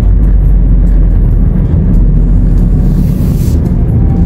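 Car driving, heard from inside the cabin: a steady, loud low rumble of engine and road noise.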